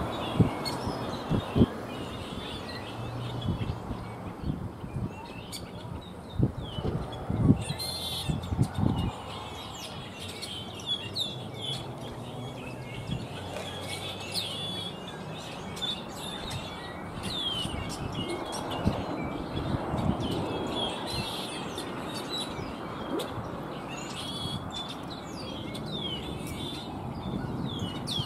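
Small birds chirping in many quick, high notes, over a steady low rush of outdoor background noise, with a few low thumps in the first several seconds.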